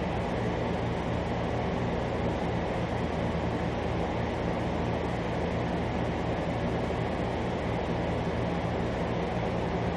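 Steady background noise: a low hum under an even hiss, with no distinct events.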